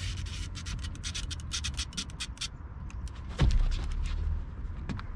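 Fishing reel clicking rapidly and irregularly, with a heavy dull thump about three and a half seconds in and another near the end.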